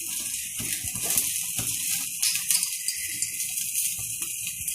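Butter-basted tandoori chicken sizzling on a stovetop griller over a gas flame: a steady hiss with many small crackles and pops.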